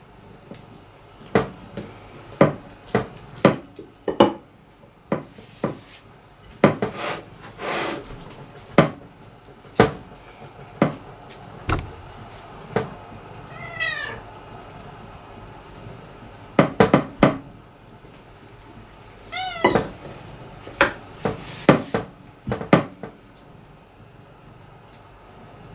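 Rolling pin knocking and clacking against a marble pastry board as dough is rolled out, in irregular sharp taps throughout. A cat meows twice, once about midway and again a few seconds later.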